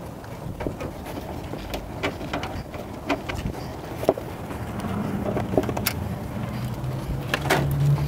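Scattered clicks and light metallic knocks as the sheet-metal hood side panel of a 1932 Ford roadster is unlatched, worked free and lifted off, over a steady low hum.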